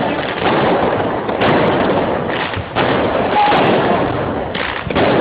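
Fireworks going off one after another: loud sudden bangs about once a second or so, each trailing into a dense rumbling noise.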